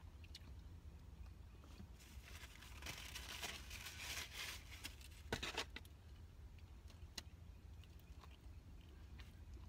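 Paper food wrapper crinkling and rustling for a few seconds as breakfast food is handled, followed by a couple of sharp clicks, over a faint low hum.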